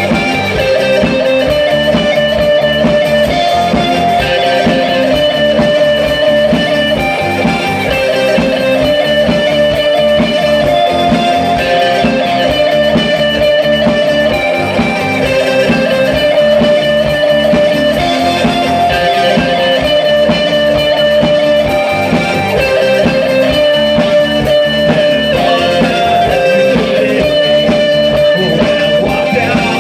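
Live new wave band playing an instrumental passage with no singing: strummed electric guitars over a steady drum beat, with held notes changing about every second.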